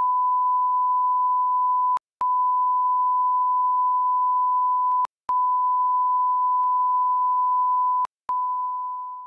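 Steady 1 kHz test-card line-up tone, broken by a short gap about every three seconds, three times here, and fading out at the very end.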